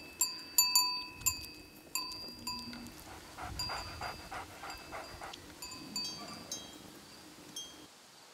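Livestock bells on a moving flock of sheep and goats, clinking irregularly, each strike ringing briefly.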